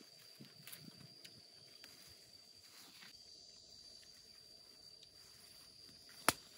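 A steady high-pitched insect drone with faint rustling of leaves and a plastic bag as fruit is picked from a tree branch; a single sharp click sounds about six seconds in.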